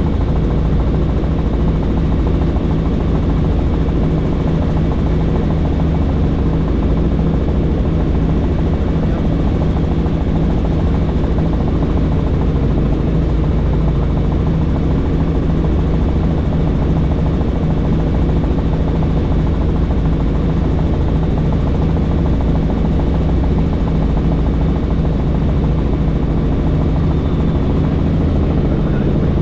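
Helicopter in steady flight, heard from inside the cabin with the doors off: the even, unbroken drone of rotor and engine, holding several fixed low pitches over a constant rush of air.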